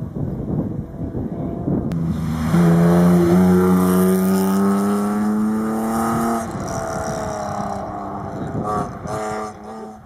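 Rally car engine at high revs pulling hard up the stage, its note rising slowly, after about two seconds of wind noise on the microphone. The note drops about six and a half seconds in, and short breaks near the end mark quick gear changes as the car goes past.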